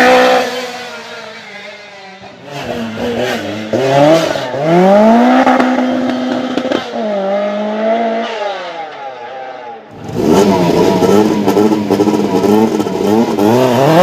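Lancia Rally 037's supercharged four-cylinder engine accelerating hard, its pitch climbing and dropping back at each gear change as the car pulls away. About ten seconds in it cuts to the engine revved up and down repeatedly in quick succession while the car stands still.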